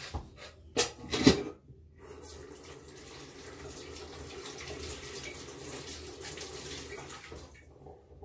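A couple of sharp knocks, then a water tap running steadily for about six seconds while hands are washed under it. The water stops near the end.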